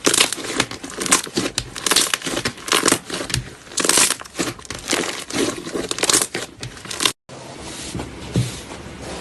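Slime being squeezed and pressed by hand, making dense, irregular crackling and crinkling. A brief cut about seven seconds in, after which it goes on softer with a few pops.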